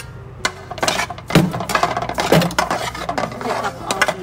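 Utensils scraping and clinking in a stainless steel frying pan as chopped onion and garlic are tipped in off a wooden board and stirred with a metal spatula, with two louder knocks about a second apart.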